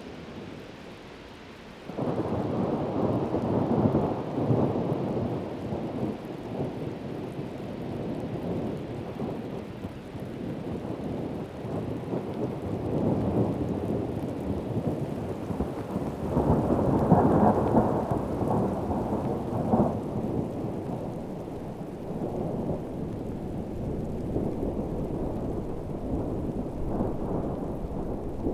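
Heavy rain with rolling thunder. A long rumble comes in suddenly about two seconds in and swells again a little past the middle.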